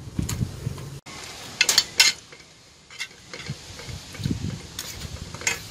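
Metal spoon scraping and clinking against a frying pan while scooping out a fried egg, with a few sharp clinks, the strongest a little under two seconds in.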